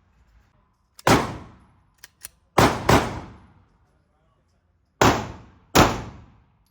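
Handgun fired five times at uneven intervals, two of the shots in quick succession, each a sharp bang with a ringing tail.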